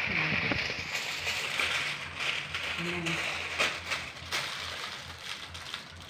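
Aluminium foil crinkling and rustling as it is pressed and rolled by hand around a whole fish, loudest in the first few seconds and fading toward the end.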